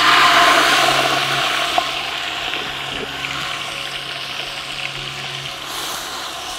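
Freshly crushed onions sizzling in hot coconut oil and ghee in a large metal pot, loudest at first and then easing off. A perforated metal skimmer stirs them, with a few light clicks against the pot.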